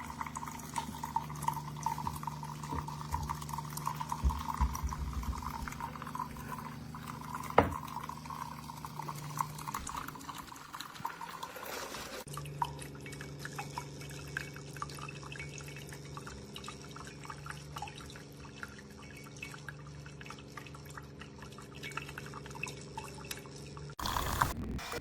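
Keurig K-Mini single-serve coffee maker brewing: coffee streaming and dripping into a cup over a steady low hum.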